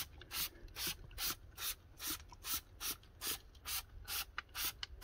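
Trigger spray bottle squirting tyre shine onto a tyre sidewall: short hissing squirts in a quick, even rhythm, about two or three a second.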